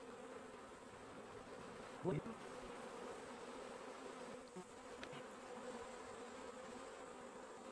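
Steady hum of a honey bee swarm, thousands of bees flying and crawling around a freshly dropped cluster as they are hived. A brief louder sound comes about two seconds in.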